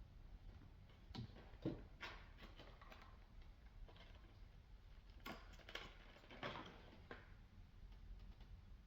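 Faint, scattered clicks and light knocks of hands handling small hose plugs while fitting one into the open end of a disconnected coolant hose, about six in all, with a low background hum.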